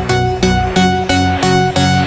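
Background music: an upbeat instrumental track with a plucked guitar-like melody over a steady beat of about four notes a second.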